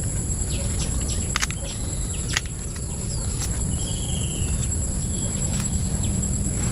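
Insects keeping up a steady high-pitched buzz, with a few short bird chirps and two sharp clicks about a second and a half and two and a half seconds in, over a constant low rumble.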